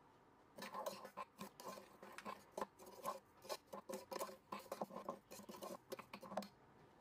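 A metal spoon stirring dry cocoa, sugar and flour in a stainless steel saucepan, with quick scraping and clinking against the pot's sides. It starts about half a second in and stops just before the end.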